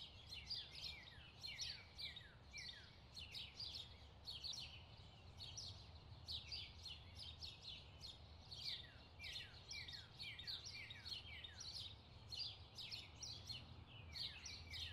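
Faint chirping ambience: many short chirps that fall in pitch, repeating a few times a second, over a low steady hum.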